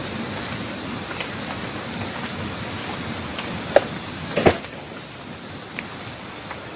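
Steady hiss of rain, with a thin constant high insect buzz and scattered light ticks. Two sharp knocks come close together about four seconds in, after which the hiss is a little quieter.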